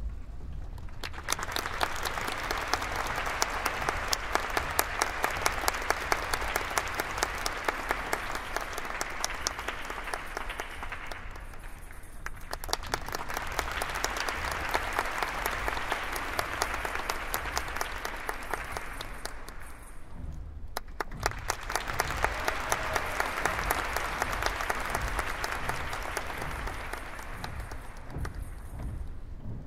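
Audience clapping in rhythm in three long stretches, each lasting several seconds, with brief breaks at about 12 and 20 seconds. A low rumble runs underneath.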